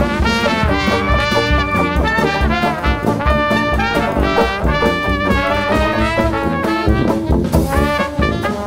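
Background music: brass-band jazz with trumpet and trombone lines over a steady bass beat.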